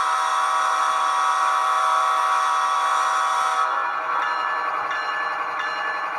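Digital sound decoder in an HO-scale GE ES44AC model locomotive, an ESU LokSound, sounding a chime diesel horn from its onboard speaker. The horn is held steadily and cuts off about three and a half seconds in, leaving the decoder's GE diesel engine sound running underneath.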